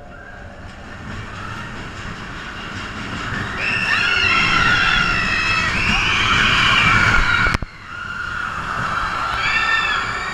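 Roller coaster train rumbling along its track with riders screaming, their high wavering shrieks loudest in the middle. A sharp clack about seven and a half seconds in is followed by a brief drop in loudness, and the screams pick up again near the end.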